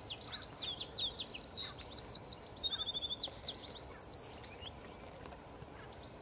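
A small songbird singing a fast, high song of quick repeated notes with a short trill, for about four seconds and then fading, over a faint steady background hiss.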